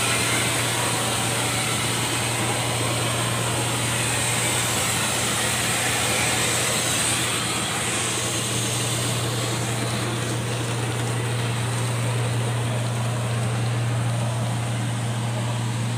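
Construction machinery running steadily on a grouting site: a constant low hum under a broad hiss, without a break or change in pace.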